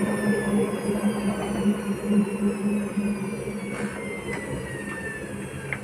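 Hotpoint-Ariston washing machine's drum and motor winding down from a spin, with a falling whine and a steady hum that slowly get quieter. A few short knocks come about two-thirds of the way through and near the end.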